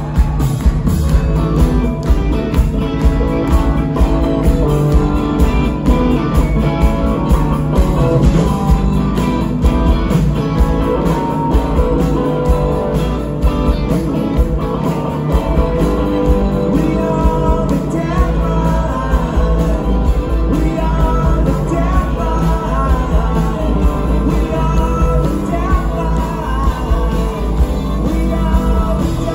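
Live rock band playing at full volume: electric guitars, bass and drums with a steady beat and sung vocals, heard from the crowd in front of the stage.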